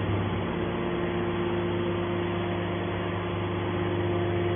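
Hydraulic scrap metal baler running with a steady, even hum from its motor and pump.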